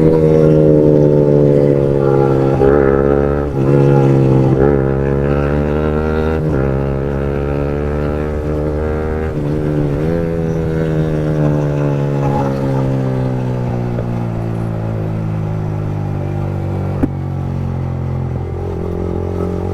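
Yamaha MT-15's 155 cc single-cylinder engine through an Akrapovic long-can aftermarket exhaust, with a deep, bassy note. The bike revs up through several quick gear changes in the first ten seconds, then the note falls steadily as it slows. There is one sharp pop near the end.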